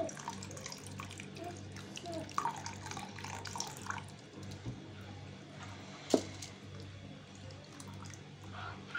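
A ladle stirring a thick, hot milk and custard mixture in a metal pot, with soft sloshing and dripping as a thin stream of liquid is poured in and the ladle is lifted. A sharp knock of the ladle against the pot about six seconds in, over a steady low hum.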